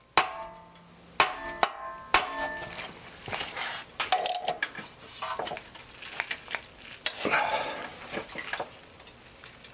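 Tapping on a steel flywheel puller bolted to an outboard motor's flywheel: four sharp metallic taps in the first two seconds, each ringing briefly, then lighter clinks and handling noise on the puller. The flywheel is stuck tight on its shaft.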